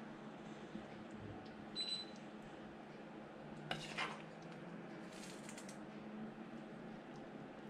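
A utensil clinking against dishware as stewed chicken menudo is spooned onto a ceramic plate. There is one short ringing clink about two seconds in and two quick clinks around four seconds, over a faint steady low hum.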